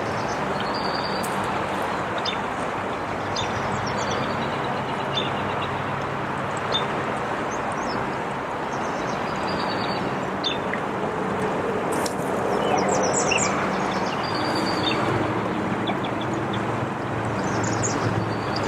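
Steady rush of the flooded river's high water, with a low hum underneath. Small birds chirp now and then.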